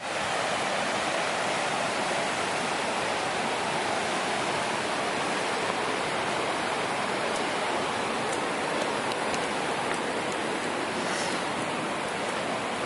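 White-water river cascading over rocks, a steady rushing of rapids.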